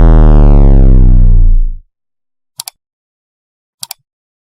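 A loud, low, steady synthesizer tone that fades out just under two seconds in, followed by two quick double clicks about a second apart.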